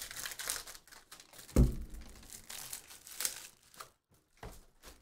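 Foil wrapper of a Panini Prizm football card pack crinkling and tearing as it is opened by hand, with one dull thump about a second and a half in.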